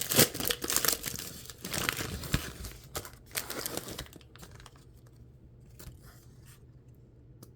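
Foil wrapper of a 2023 Bowman Draft trading-card pack crinkling and tearing as it is opened, busy for about four seconds. After that only a few faint ticks.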